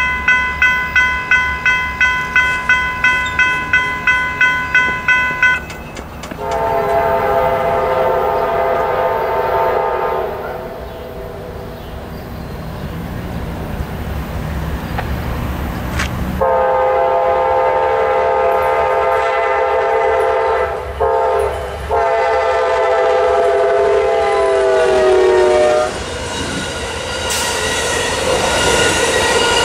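Railroad crossing's General Signals Type 3 electronic bells ringing at about three strikes a second, cutting off about five seconds in. Then a GE P42DC locomotive's horn sounds the grade-crossing signal, long, long, short, long, the last blast falling in pitch as it goes by. The clatter of passing passenger cars follows.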